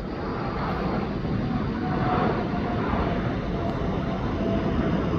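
Jet airliner engine noise: a steady rushing noise that slowly grows louder, with a faint whine.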